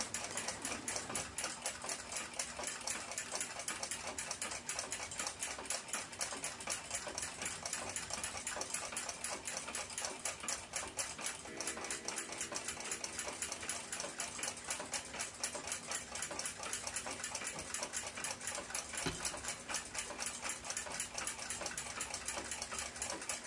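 Quick, continuous clicking and light clinking of steel tweezers and small brass parts on a clock movement being taken apart.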